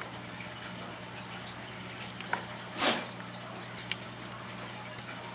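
Hand-handling noises as rubber fuel line is worked onto a fitting: a few small clicks and one short squishing rub just before the 3-second mark, over a steady low hum.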